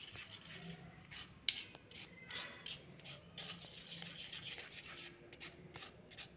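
Spoon scraping and pressing blended raw-mango pulp through a fine metal mesh strainer: an irregular run of rasping strokes, with one sharp knock about a second and a half in.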